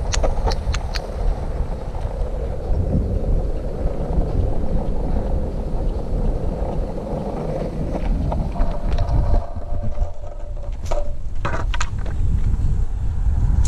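Wind rushing over an action camera's microphone at speed on a downhill road run, over a steady low roll of wheels on asphalt. A few sharp clicks sound near the start and again in a cluster about ten to twelve seconds in.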